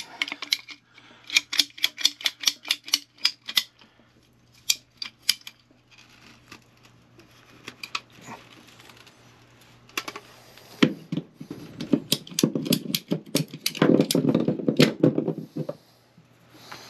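Ratcheting PVC pipe cutter snapping through the old 3/4-inch PVC condensate p-trap, a quick run of sharp clicks in the first few seconds. Later, louder rustling and knocking of the plastic pipe being handled.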